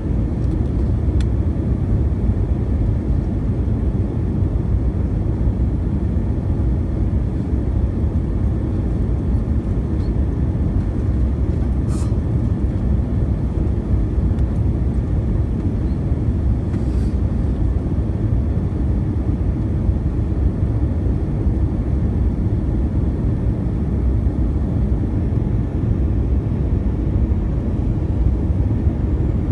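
Steady low rumble of an Airbus A320's engines and rushing airflow, heard inside the cabin during the descent on final approach.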